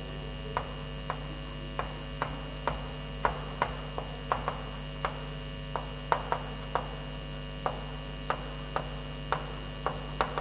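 Chalk tapping and scraping on a blackboard as words are written: short, sharp taps at an uneven pace, about two a second, over a steady electrical hum.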